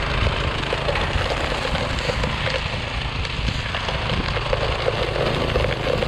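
Troy-Bilt Storm 2410 two-stage snowblower's Powermore engine running steadily under load as the machine is pushed through deep snow.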